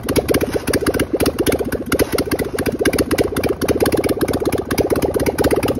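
Harley-Davidson Sportster 1200's air-cooled V-twin engine running at a steady idle, a fast, even stream of exhaust pulses.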